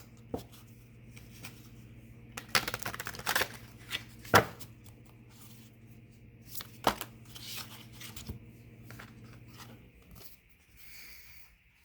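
Tarot cards being shuffled and laid out by hand: papery rustling and sharp clicks and slaps, busiest a few seconds in. A steady low hum runs underneath and stops near the end.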